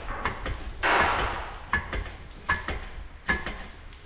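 Metal workshop clatter: a loud rattling clank that dies away over about a second, then a run of sharp metallic clinks with a brief ring, roughly one every 0.8 s.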